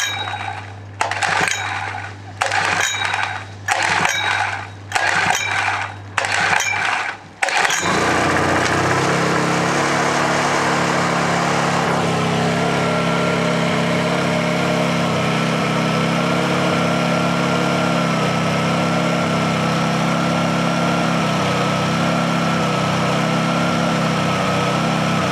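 Small Honda portable generator cold-started by hand: about six recoil pulls a second or so apart, then the engine catches just under eight seconds in and runs steadily, with a steady high whine joining in a few seconds later. It is running on two-stroke premix instead of ordinary unleaded petrol.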